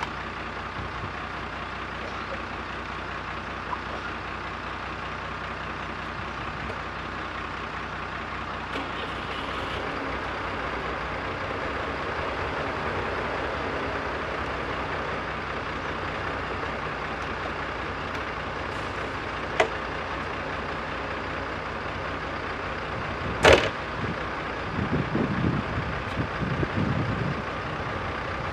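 Diesel engine of a JCB backhoe loader running steadily under work. A single sharp knock rings out about 23 seconds in, followed by uneven, irregular sounds near the end.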